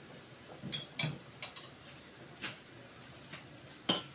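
Kitchen utensils tapping and clinking on cookware a handful of times at uneven intervals, the sharpest near the end, as the cooked noodles and meatballs are dished up.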